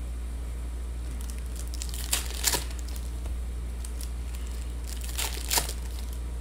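Foil trading-card pack wrapper crinkling and tearing open in a few short bursts, over a steady low hum.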